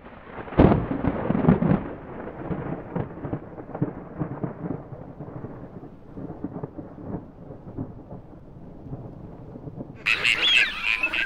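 Thunder: a sharp crack about half a second in, then a long muffled rumble that slowly fades. About ten seconds in it cuts off and waterfowl calls take over, several wavering calls in quick succession.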